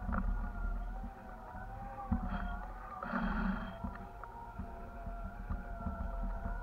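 Wind buffeting a camera rig slung from a kite high in the air: a constant low rumble with irregular knocks and rattles, under a steady wavering hum of several tones, and a brief louder gust about three seconds in.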